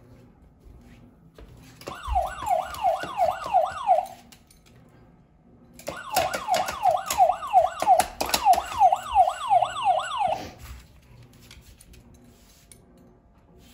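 A red push-button siren alarm, pressed by a beagle's nose, sounds a fast repeating falling wail of about three sweeps a second. It sounds twice, first for about two seconds and then for about four and a half. The dog is using it to call for his dinner.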